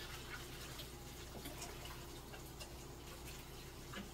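Light kitchen clatter: a few scattered soft clicks and taps, like utensils or dishes being handled, over a steady low hum.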